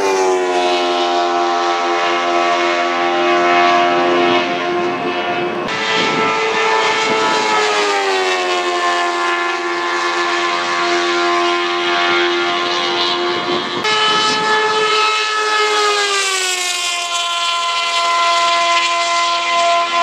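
Formula Predator's single-seater race cars with 600 cc motorcycle engines, screaming at high revs. The high, multi-toned wail falls in pitch several times as cars go by.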